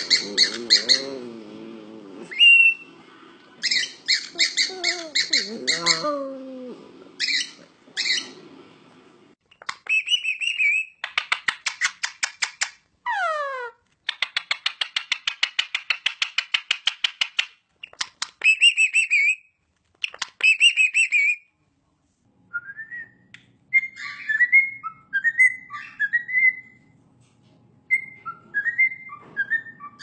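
Pet parrots, cockatiels and Indian ring-necked parakeets among them, calling: fast runs of repeated chirps, rapid chattering pulses with a falling squawk midway, then short whistled phrases near the end.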